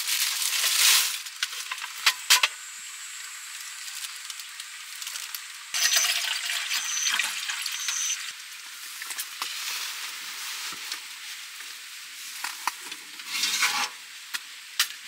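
A plastic bag crinkling as it is unfolded in the first second, then water poured from a bottle into a stainless steel pot for about two seconds, starting about six seconds in, with scattered clinks and rustles of camp gear over a steady faint hiss.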